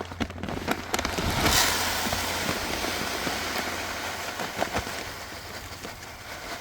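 Dry chicken feed pouring into a plastic 5-gallon bucket: a continuous hiss of many small grains pattering. It builds in the first second or so and then gradually thins out.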